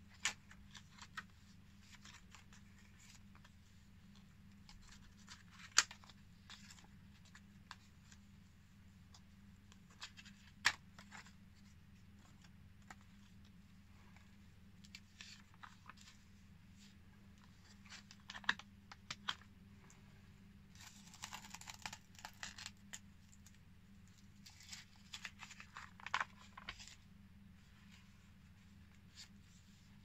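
Pages of a handmade paper junk journal being turned and handled: scattered soft paper rustles and light taps, with longer rustling spells about two thirds of the way through, over a faint steady hum.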